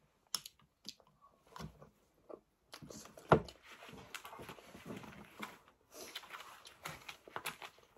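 Mealtime sounds at a table: a spoon clinking and scraping in a jar, light clicks of food and cutlery on plates, and chewing, with one sharp knock about three seconds in.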